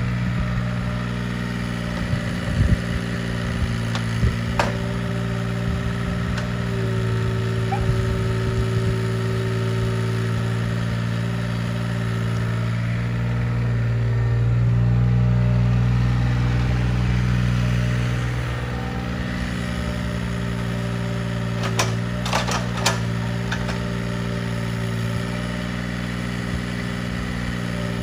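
Mini excavator engine running steadily, warmed up with its belt squeal gone now that the thermostat has opened. Its pitch shifts and it grows a little louder for a few seconds around the middle, with a few short clicks and clatters near the start and again later.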